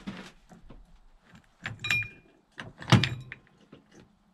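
A 1989 Yamaha Moto-4 YFM350ER engine being turned over by hand with its clutch cover off: small metallic clicks, a ringing metal clink a little under two seconds in, and a heavy knock about three seconds in. The clunk is the sign of something broken down in the center of the motor, beyond the blown centrifugal clutch.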